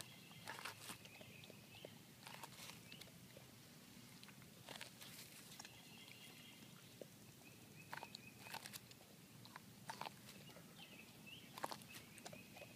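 A puppy chewing and tearing the husks off an ear of corn on the cob: irregular crunches and snaps, a few at a time, several seconds apart.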